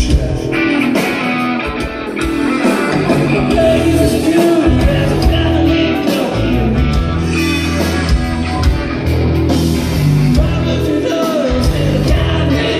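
Live rock band playing a song: distorted electric guitars, bass and drums, with lead singing over them.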